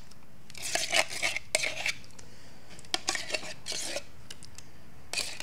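A utensil scraping and clinking around inside a tin can of blueberry pie filling as the filling is scraped out, in two bouts of about a second each.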